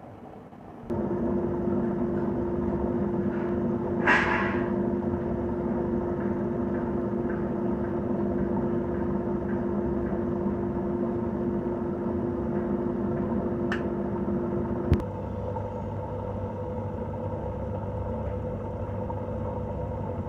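Aquarium pump motor humming steadily over the tank's water noise. It starts with a jump in level about a second in, has a brief hiss about four seconds in, and at a sharp click near the end its hum shifts to a different pitch.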